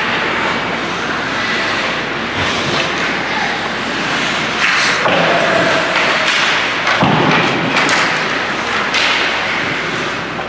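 Ice hockey game in a rink: repeated thuds of the puck and players hitting the boards over a steady din of the arena and crowd.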